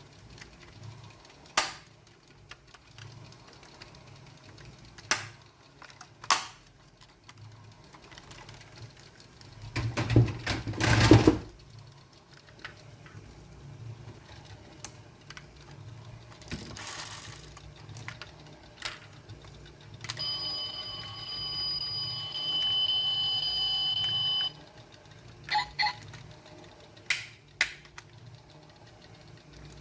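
Small toy cars handled close up: scattered sharp clicks and knocks of their parts, with a louder rattling about ten seconds in. Past the middle comes a steady electronic tone for about four seconds, which cuts off abruptly.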